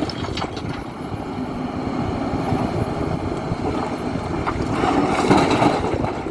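Hidromek 310LC H4 33-ton excavator working in blasted rock, its diesel engine running steadily under load. A few sharp knocks of rock come near the start, and the machine grows louder about five seconds in.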